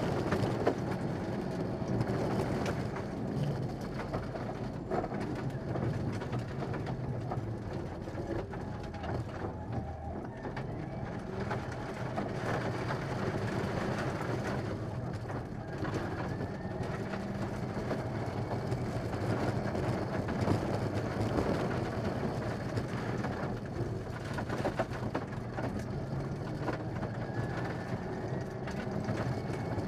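Mitsubishi Lancer Evolution VI rally car's turbocharged four-cylinder engine running hard on a gravel stage, heard from inside the cabin, with the revs rising and falling through the gears. Frequent clicks and knocks come from gravel and the rough road under the car.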